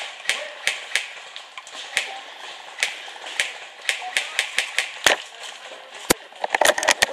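Airsoft guns firing: a steady string of sharp clicking shots, about three a second. A single sharper crack comes about six seconds in, and a faster, louder flurry of shots near the end.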